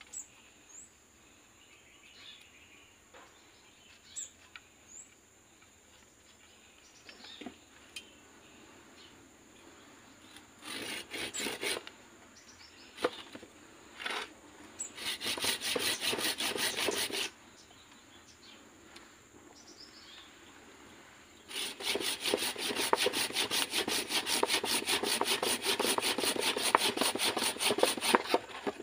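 Hand pruning saw cutting through the woody root stock of an anting putri (Wrightia religiosa) in quick back-and-forth strokes. A short burst comes about ten seconds in, then a couple of seconds of sawing around fifteen seconds, then steady sawing from about twenty-one seconds on. Before that are a few faint bird chirps and light taps.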